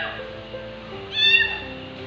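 A kitten meows once, a short high-pitched call about a second in, over background music with slow held notes.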